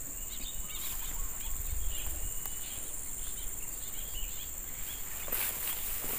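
Steady high-pitched drone of insects, with a few brief rustles near the end.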